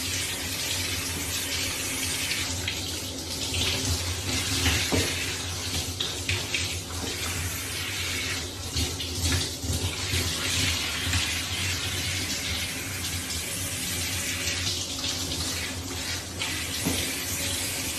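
Water spraying steadily from a handheld shower head over a cat and into a sink.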